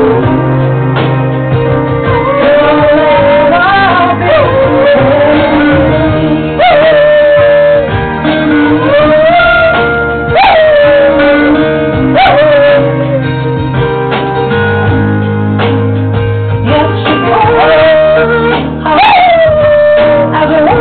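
Pet dogs howling along to a recorded pop song with a singing voice, guitar and bass; the howls rise and then slide down in pitch, several times.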